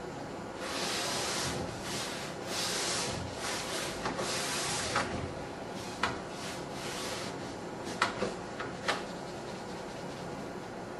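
Mesh-covered scouring pad scrubbing wet rear window glass in long strokes, with a few sharp clicks and knocks in the second half. No grit can be heard catching under the pad.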